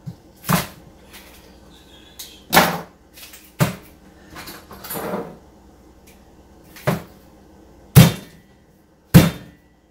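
About seven sharp knocks at uneven intervals, the loudest near the end, with a brief scraping rustle in the middle: a refrigerated biscuit can being rapped against a hard surface to burst its seam, and not popping open.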